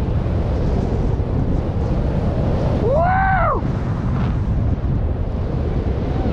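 Steady wind rushing over the microphone of a speed rider gliding fast on skis under a small paraglider-type wing. About three seconds in, one brief whoop rises and falls in pitch.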